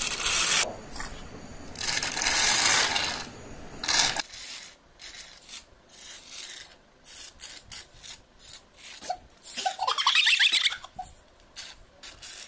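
Drinks slurped through thin plastic straws from the compartments of a plastic ice cube tray, with hissing sucks and then many short clicks and scrapes as the straws rub and tap against the tray.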